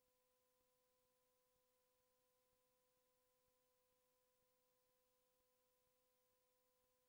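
Near silence, with only a very faint steady tone in several pitches.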